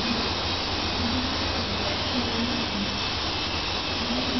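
Helicopter running steadily: a continuous hiss-like noise over a low hum.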